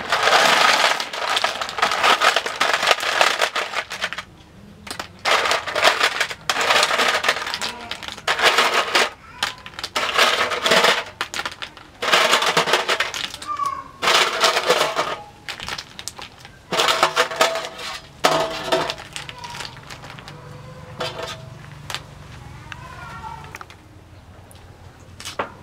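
A heap of snail shells clattering against each other and against a stainless steel tray as they are tipped and shaken out into a woven bamboo basket, in several rattling bursts that stop well before the end.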